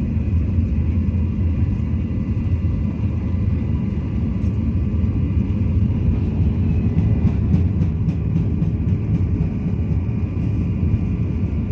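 Steady low rumble of a moving vehicle heard from inside the cabin, with faint steady hum tones and a few light clicks a little past the middle.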